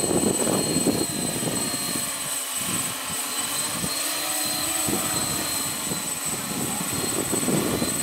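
Heavy X8 coaxial octocopter's eight electric motors and propellers humming as it holds a hover against strong wind, the pitch wavering as the motors correct for gusts. Wind buffets the microphone with an uneven low rumble.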